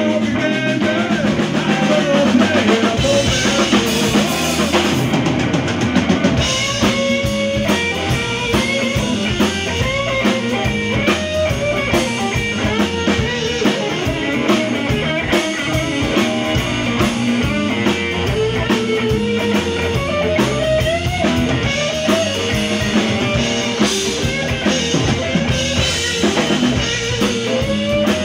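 Live blues band playing an instrumental section: an electric guitar plays lead lines with bending notes over electric bass and a drum kit keeping a steady beat.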